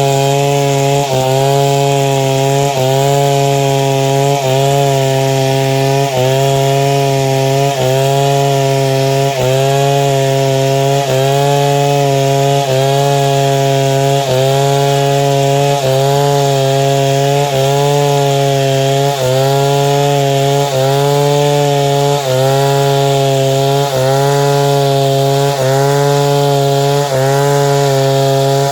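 Two-stroke chainsaw running at high revs under load, ripping lengthwise through a log to cut planks. The engine pitch dips briefly about every second and a half as the chain bogs in the cut, then recovers.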